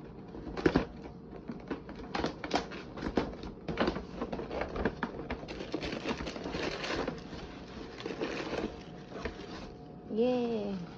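Takeout bag and paper wrapping rustling and crinkling as a salad container and a drink can are unpacked, with irregular light clicks and knocks from handling the plastic container and can. Near the end there is a short pitched sound that bends up and then down, like a brief hum.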